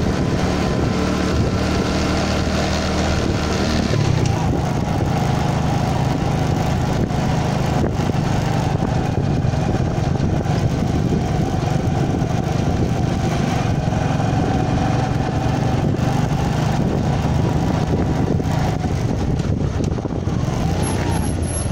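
A vehicle's engine running steadily while driving, its note shifting about four seconds in.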